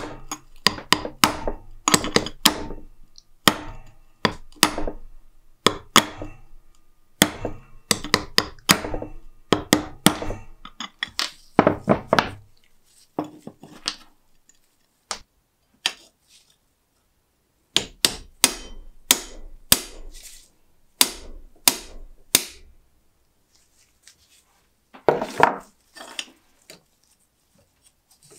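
Small hammer tapping repeatedly on a rusty antique iron door lock and its key, working to free the rust-jammed mechanism; the strikes come in quick runs with a metallic ring under them. After a pause, a second slower run of taps, then a short scraping sound near the end.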